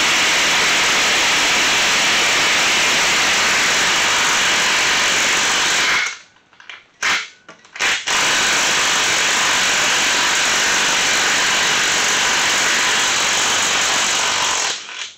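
Cordless impact wrench hammering on a rust-seized stud nut of a transfer case housing, in two long runs with a short break about six seconds in. The stud is stuck fast with rust.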